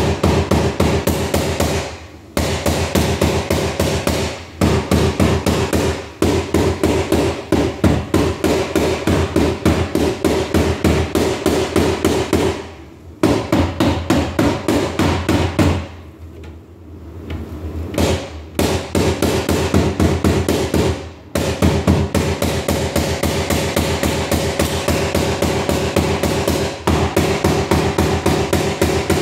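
Hammer striking a door sweep at the bottom of a door, knocking it down into place in quick runs of several blows a second. The runs last a few seconds each, with short pauses between them and a longer pause about halfway through.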